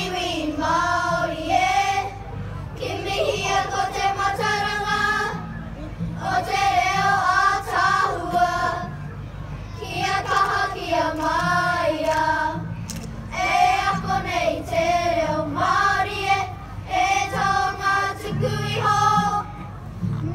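Children's kapa haka group singing a Māori action song (waiata-ā-ringa) together in unison, in phrases of a couple of seconds with short breaks between them.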